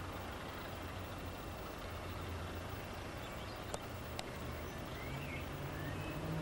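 Distant diesel locomotive engine running with a steady low throb, its note rising and strengthening toward the end as it opens up and puts up exhaust. Birds chirp faintly, and two sharp clicks sound in the middle.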